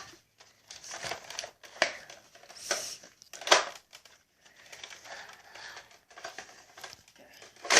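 Plastic clicks, knocks and rattles of a toy gun being handled as someone tries to load it, with a sharper click about three and a half seconds in.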